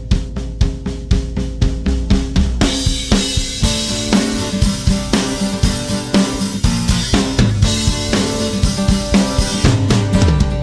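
Background music with a steady drum-kit beat: bass drum, snare and cymbals over a bass line.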